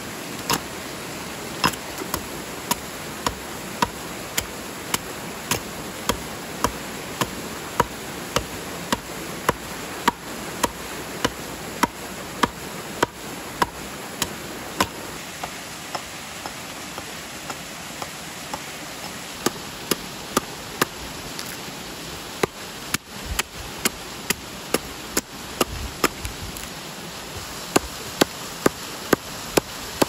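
Hatchet blows chopping into a wooden stump as it is hewn flat, about one or two sharp strikes a second, with a pause of a few seconds midway. A waterfall rushes steadily behind.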